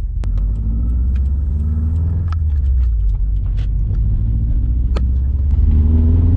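Turbocharged Subaru WRX flat-four engine pulling under acceleration from inside the cabin, its note rising in pitch more than once and growing louder near the end, with scattered sharp ticks. The car makes only about 5 psi of boost and runs rich, which the owner suspects is a bad wastegate.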